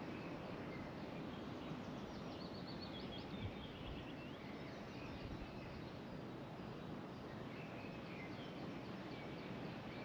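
Outdoor ambience of small songbirds singing over a steady low rush. The clearest phrase is a quick descending run of short high notes about two to three seconds in, with fainter calls later.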